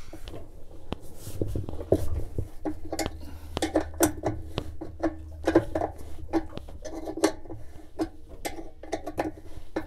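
A 7/16 wrench clicking and clinking against the bolt that holds a GE washing machine's agitator coupling as the bolt is loosened. The metallic clicks are irregular, a few a second.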